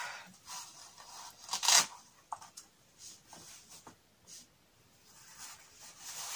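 Hook-and-loop fastener on a back-support brace being ripped open, a loud tearing rasp about a second and a half in, followed by shorter, fainter tearing and rustling as the straps are pulled off.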